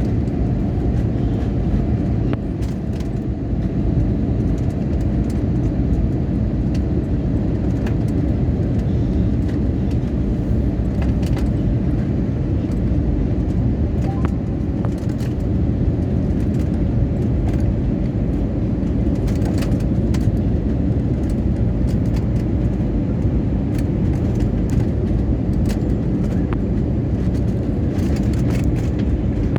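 Airliner landing noise: a steady, loud low rumble, with a faint hum that fades out in the first few seconds.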